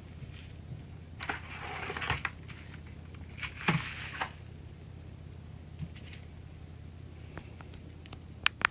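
Plastic clicks and short scrapes of an HP Pavilion DV2000 laptop being taken apart by hand, in scattered bursts, with a few sharp clicks near the end. A steady low electrical hum runs underneath.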